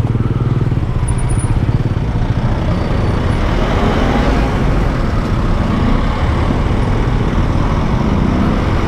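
Motor scooter engine running steadily at low speed in slow city traffic, with a fine even pulsing and road noise.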